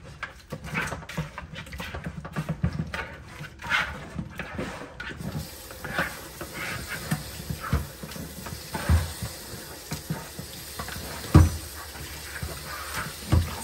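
Raw pork chops being scrubbed with salt by hand at a kitchen sink, a wet rubbing and handling noise. About five seconds in, the tap starts running with a steady hiss, and a few dull knocks against the sink come through it, the loudest near the end.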